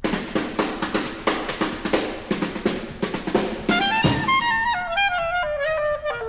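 Big-band jazz recording: rapid drum and cymbal hits for the first few seconds, then, about four seconds in, a solo wind instrument plays a descending melody over lighter accompaniment.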